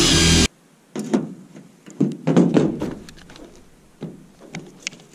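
Corded electric drill boring a 1/4-inch hole through sheet metal, cutting off about half a second in. Then a few scattered knocks and taps as the drill is moved to the next hole and its bit set against the metal.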